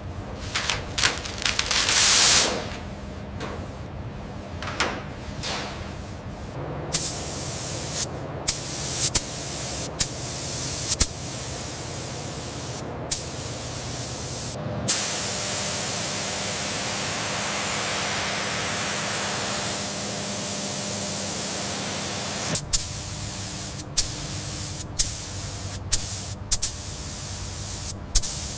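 Compressed-air tool hissing: short blasts of air with sharp clicks, then a steady blast lasting about seven seconds from around fifteen seconds in, then more clicks.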